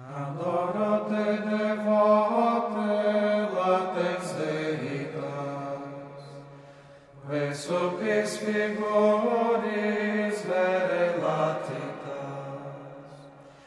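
Slow sung chant: voices hold long notes in two phrases, each trailing away, the first fading out about seven seconds in.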